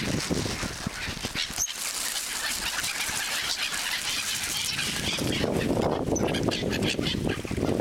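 A large mixed flock of waterbirds (gulls, coots, mallards and swans) crowding for food, a dense chorus of many short overlapping calls.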